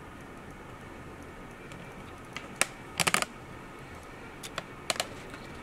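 A few small sharp clicks over low room hiss: one about two and a half seconds in, a quick cluster of three or four around three seconds, and two more near five seconds.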